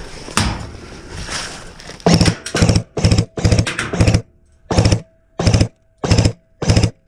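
Airsoft electric gun firing short full-auto bursts: about nine rapid rattling bursts, the first few close together, then about one every half second. Before the bursts there are a couple of seconds of rustling noise.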